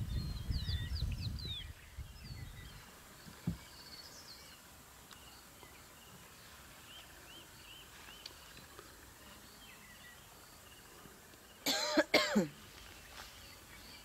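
Birds chirping, over a low rumble that dies away about two seconds in. About twelve seconds in, a loud cough in quick bursts, falling in pitch.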